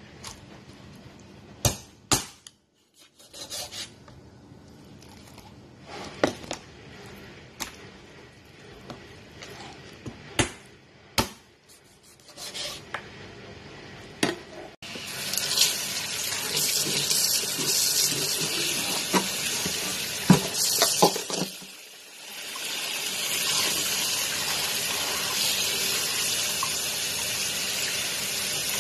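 Scattered knocks and taps as raw chicken is handled on a plastic cutting board. About halfway through, a tap comes on suddenly and water runs steadily into a metal bowl in a stainless steel sink as the chicken is rinsed by hand, with a brief lull a few seconds later.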